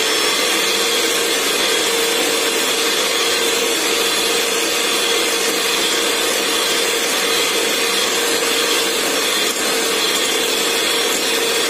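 Electric hand mixer with twin wire beaters running at a steady speed, whipping instant coffee, sugar and warm water into dalgona foam: a continuous motor whine.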